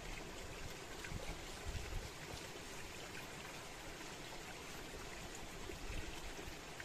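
Steady rushing of a river, with a few faint ticks from a machete working a green bamboo tube.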